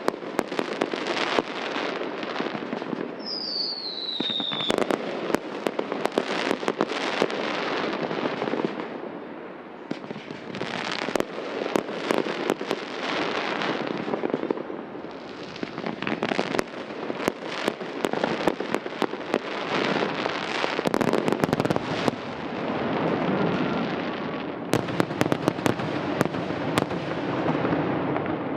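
Fireworks display: aerial shells bursting in a dense, irregular run of bangs over continuous crackling from glittering stars. About three seconds in, a short whistle glides down in pitch.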